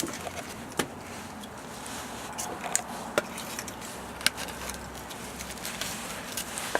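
A few scattered sharp clicks and light knocks over a low background rumble, the sounds of the saw and workpiece being handled while the miter saw's motor is off.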